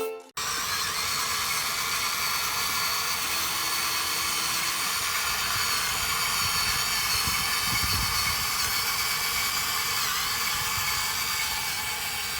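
Small electric motors of a 1/14 scale HUNA remote-control excavator whining steadily, with a few low knocks in the second half.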